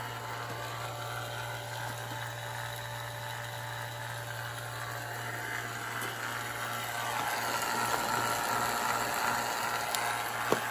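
HVAC vacuum pump running steadily with a constant low hum, pulling a vacuum on a mini-split refrigerant line set at close to −30 inHg. It grows louder about two-thirds of the way through, and a sharp click comes near the end.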